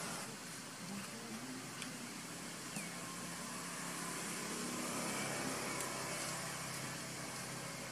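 A motor vehicle passing at a distance, its engine hum swelling toward the middle and easing off over a steady background hiss.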